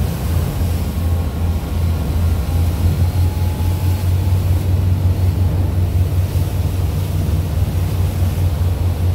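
Pilot boat's engine running at speed with a steady low drone, over the rushing of the churning wake and waves.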